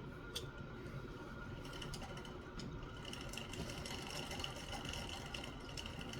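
Faint small metallic clicks as revolver lockwork parts (trigger, hand) are handled and seated in the frame, over a steady faint hum.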